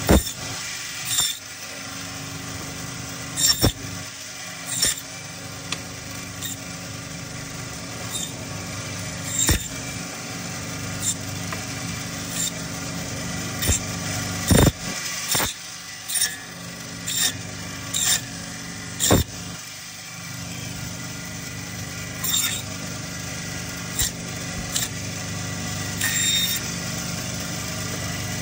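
Meat bandsaw running steadily while cutting lamb shoulder, with short sharp cracks every second or two as the blade goes through the bone-in pieces.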